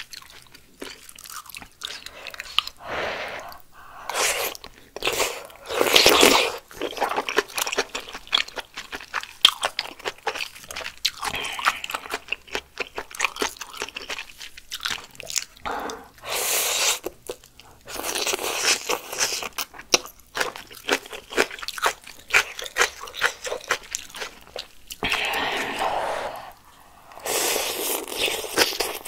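Close-miked eating of malatang noodles and fresh coriander: steady chewing full of small wet, crunchy clicks, broken up by several slurps about a second long, the loudest near the start, the middle and the end.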